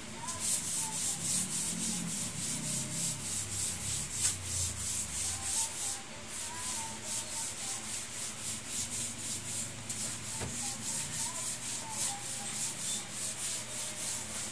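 Damp cloth rag rubbed by hand back and forth over a wet wood-grain floor, a steady rhythm of quick swishing strokes, about three or four a second, with a brief pause about six seconds in.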